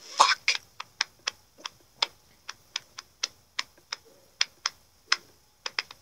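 A run of short, sharp clicks or ticks at an uneven pace, about three a second.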